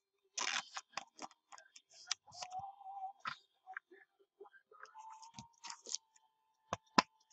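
A trading card being slid into a soft plastic sleeve and a rigid plastic top loader: light crinkling of plastic and small scattered clicks, with two sharper clicks near the end.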